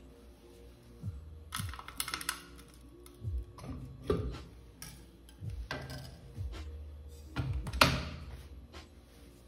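Kitchen utensils and dishes being handled: scattered clicks and knocks, the sharpest one near the end, over soft background music.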